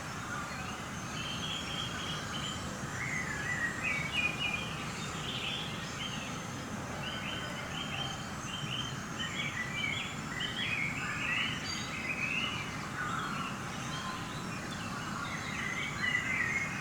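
Field recording of wind rushing over the microphones, a dull mushy noise throughout, with several birds singing and chirping over one another above it. The wind masks all but the louder birds.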